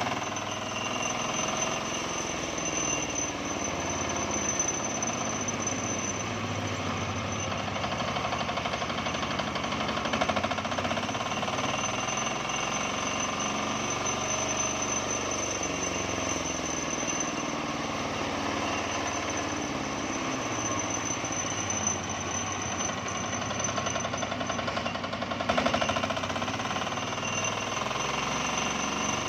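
Matsumoto single-cylinder diesel engine running steadily with a rapid, even knock, driving a homemade sawmill, with brief louder surges twice.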